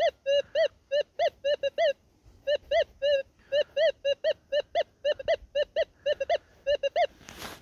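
Minelab Gold Monster 1000 metal detector sounding a good target: a quick run of short beeps, about four a second, each rising and falling slightly in pitch as the coil passes back and forth over it. A brief burst of noise comes at the very end.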